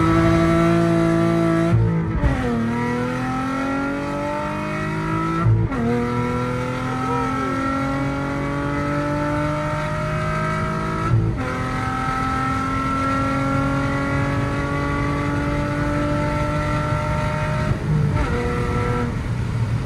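Car engine heard from inside the cabin, accelerating through the gears. Its note climbs steadily in each gear and drops at gear changes about 2, 5½ and 11 seconds in, then eases off near the end.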